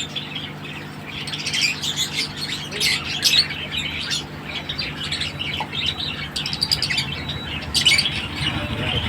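Many small birds chirping and squawking together, with short overlapping calls throughout.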